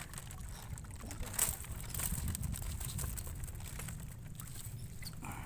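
Low rumble of wind buffeting the microphone, with a few brief rustles and taps as a mesh shrimp trap is handled and shaken out over a basket.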